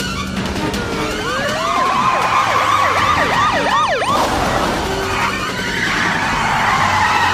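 Police car siren yelping, its pitch sweeping rapidly up and down, then tyres skidding and squealing as cars slide to a stop on loose dirt.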